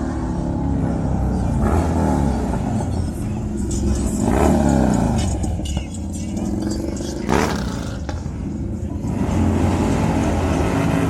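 Motorcycle engines revving in a crowd, with a swelling rev about four seconds in and a sharp rev about seven seconds in, over background music and voices.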